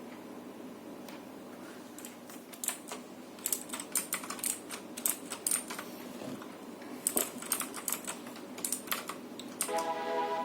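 Typing on a Vortex VX7 mechanical keyboard with clicky Outemu Blue switches: sharp key clicks in irregular flurries, with a short pause about halfway. Music comes in just before the end.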